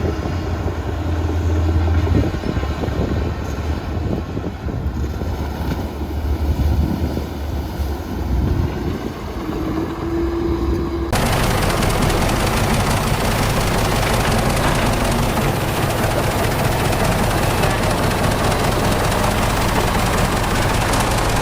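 Heavy diesel earthmoving machinery running with a low, rattling engine sound. About eleven seconds in, the sound switches abruptly to a louder, hissier, even noise of the machines.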